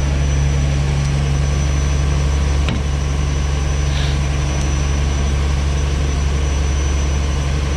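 Fishing boat's inboard engine running steadily with a low drone; a single short knock about three seconds in.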